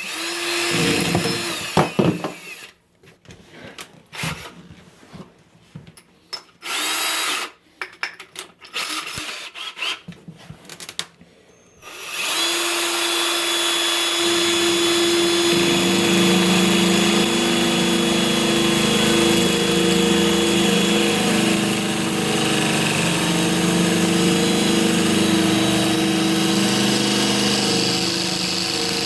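Drill fitted with an inside cutter, scoring a corroded shower-cartridge nut. It runs in short stop-start bursts for about the first twelve seconds, then runs steadily and continuously.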